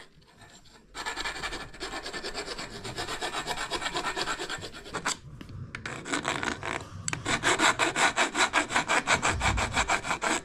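Hand file rasping back and forth in quick, even strokes, starting about a second in. It eases off briefly around the middle and resumes in a faster, steady rhythm of several strokes a second.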